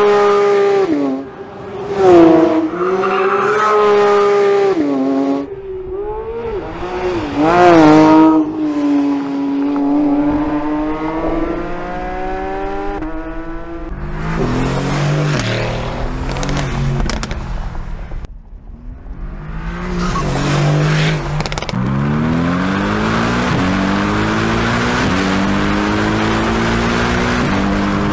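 Porsche 911 GT3 (992)'s naturally aspirated 4.0-litre flat-six revving high on track, its pitch rising and falling through shifts. About halfway through it gives way to the Mercedes-AMG GT R's twin-turbo 4.0-litre V8, a lower note, accelerating with rising pitch through several gear changes.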